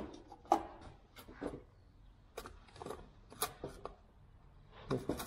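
Metal hand tools and bits being picked through and handled: scattered light clicks and clinks, the sharpest about half a second in.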